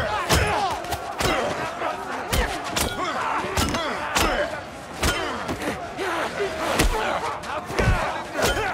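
Film riot-brawl soundtrack: a crowd of men shouting and yelling, with heavy punch and body-impact hits landing about once a second.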